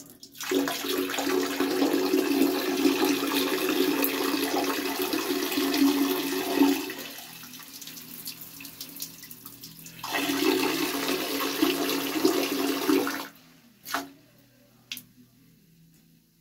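A stream of urine splashing into the water of a toilet bowl, steady for about six seconds, then weakening. A second strong spurt of about three seconds stops abruptly, followed by two short knocks.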